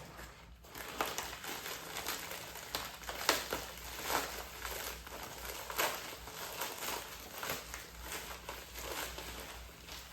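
Packaging crinkling and rustling irregularly as a pair of skateboard trucks is unwrapped by hand.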